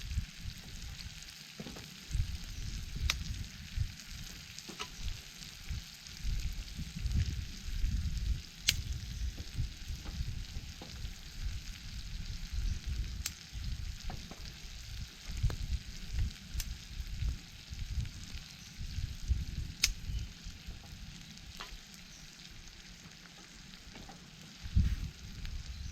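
Food sizzling in a pan over a campfire: a steady frying hiss with occasional sharp pops scattered through it, over an uneven low rumble.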